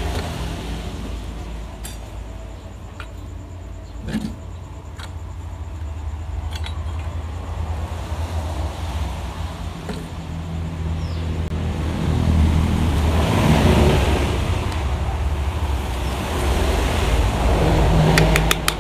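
Motor vehicle engine noise, a steady low rumble that rises and falls and is loudest about two-thirds of the way through, with a few light knocks in the first half.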